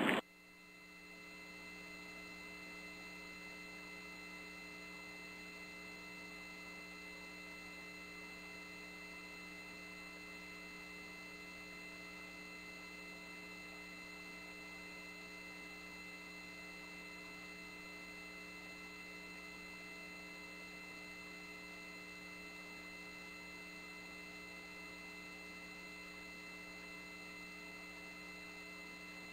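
Faint, steady electrical hum made of several fixed tones at once over a low hiss, settling in over the first second or so.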